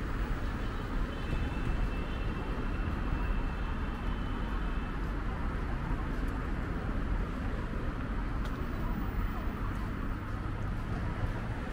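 City street ambience: a steady rumble of road traffic and passing cars.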